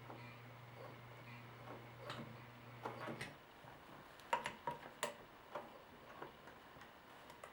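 Vintage sewing machine running with a steady low hum as it stitches over the jean zipper's teeth, stopping about three seconds in, followed by a handful of sharp clicks and taps.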